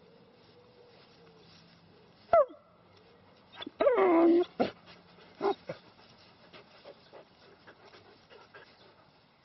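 Irish Wolfhound puppy whimpering and yelping: a short yelp that falls sharply in pitch about two seconds in, then a louder, longer whine falling in pitch a second and a half later, followed by a few short yelps.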